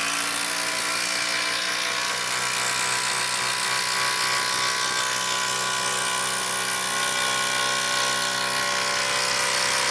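HILTI 12-volt brushless impact driver with a 5/16 nut setter driving a 6-inch lag screw into a wooden beam, its motor and impact hammer running steadily under load without a break. It cuts off right at the end as the screw is driven home.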